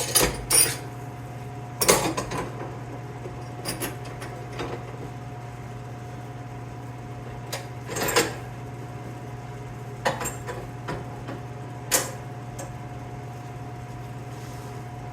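Steel welding F-clamp being handled and set against the workbench: a scatter of sharp metal clanks and knocks, a few close together near the start, then single ones about 8, 10 and 12 seconds in. A steady low hum runs underneath.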